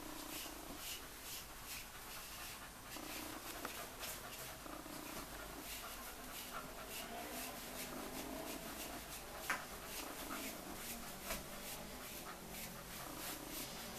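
A slicker brush raked through a cocker spaniel's curly coat in repeated short scratching strokes, about two a second. One sharp click about nine and a half seconds in.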